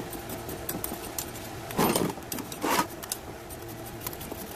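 Gritty potting gravel clicking and rattling against a metal spoon, tweezers and a ceramic pot as gravel is scooped and packed around a succulent, with many small clicks and two louder scraping rustles near the middle.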